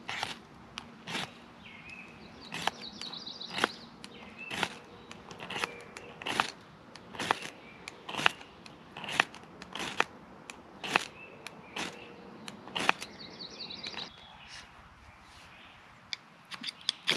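Ferro rod scraped hard against a striker over a tuft of old man's beard lichen, a sharp rasp about once a second, a short pause, then quicker strikes near the end. The sparks are not catching the lichen tinder, which is still damp from the previous day's rain.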